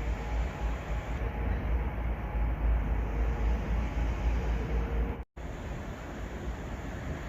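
Steady road-vehicle noise: a continuous deep rumble with a hiss of traffic over it. About five seconds in it cuts out for an instant and resumes slightly quieter.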